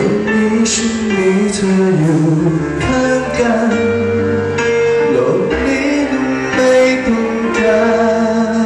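A man singing live into a microphone, backed by a band with keyboard and drums, holding long sustained notes.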